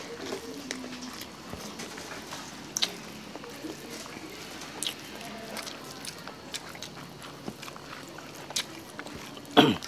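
Two people eating with their hands: quiet chewing and lip smacking, with small clicks scattered through and one short louder sound just before the end.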